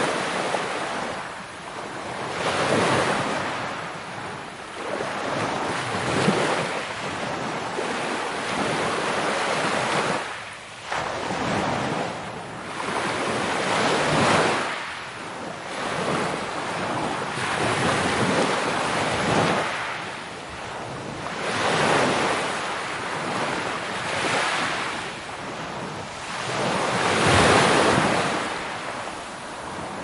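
Sea waves breaking and washing ashore, the surf swelling and fading every few seconds, with the biggest surge near the end.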